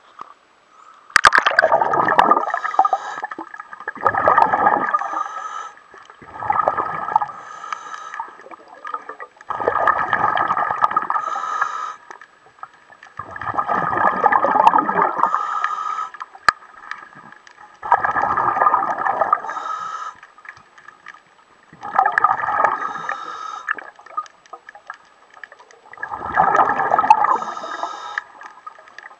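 Underwater gurgling and bubbling around a submerged camera, in about eight loud bursts one to three seconds long, coming every three to four seconds. A sharp click opens the first burst.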